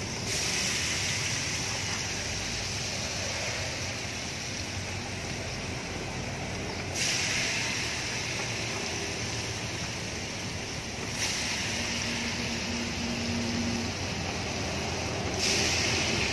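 Battered chicken pieces deep-frying in a large pot of hot oil: a steady sizzle that jumps louder four times as fresh pieces are dropped in.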